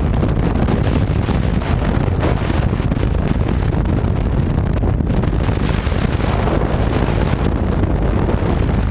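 Strong wind buffeting the microphone: a steady, loud low rumble with no breaks.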